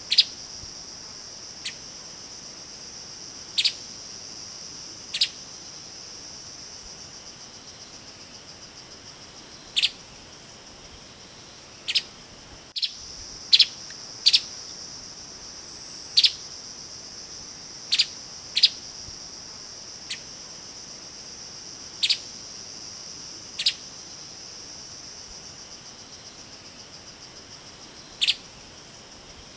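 Streaked spiderhunter giving short, sharp single call notes at irregular intervals, from under a second to several seconds apart. A steady, high-pitched insect drone runs underneath.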